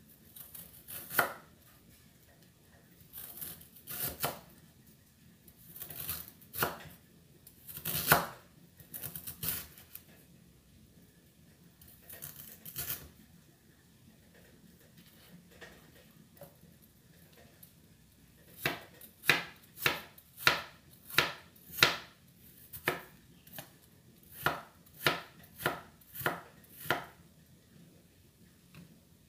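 Chef's knife slicing fresh ginger on a wooden cutting board, each cut ending in a knock of the blade on the wood. The cuts come irregularly at first, then pause, then fall into a steady run of about two a second near the end.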